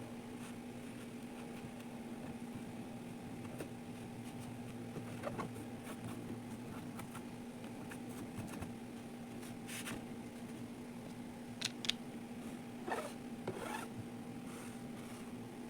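Kinetic sand being handled and cut: a handful of short, scratchy scrapes, a pair close together about twelve seconds in, over a steady background hum.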